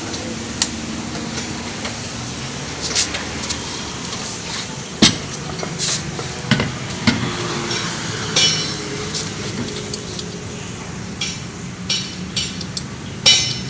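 Tyre-shop work noise: scattered sharp knocks and metallic clinks, irregular and spread through the stretch, over a steady low background hum.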